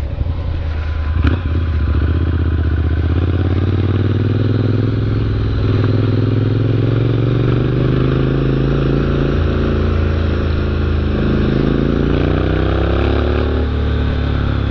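Motorcycle engine running under load on a gravel road, heard from the rider's seat. Its pitch climbs slowly for several seconds and then drops back near the end, over a steady rumble and clatter of the tyres on gravel.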